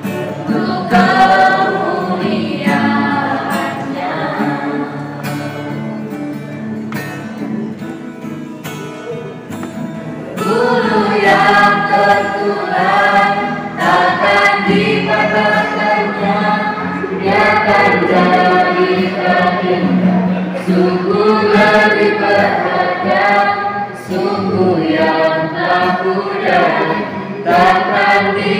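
A church youth choir of teenagers singing a hymn together. The singing is softer for the first ten seconds or so, then grows louder.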